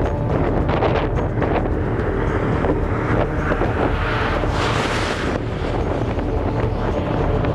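Wind buffeting the camera microphone: a steady low rumble with a few light knocks in the first two seconds. About halfway through comes a hissing gust that cuts off suddenly.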